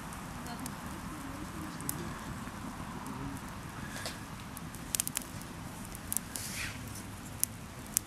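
Tinder bundle just lit from a bow-drill ember, burning with scattered sharp crackles and pops, a cluster of them about five seconds in and more near the end.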